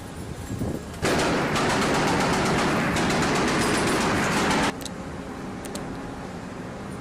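25 mm M242 Bushmaster chain gun on a Mk 38 mount firing one sustained burst of about three and a half seconds, starting about a second in and cutting off suddenly.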